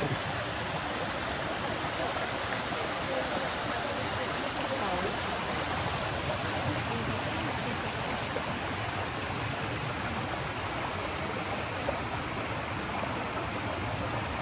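Steady rushing of water from the garden's ornamental pool fountains. Its highest hiss drops away about twelve seconds in.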